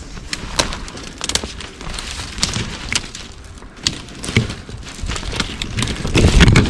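Footsteps crunching through snow, with twigs snapping and brush scraping past as a person walks through snowy brush in irregular steps. There is a louder, deeper rustle near the end.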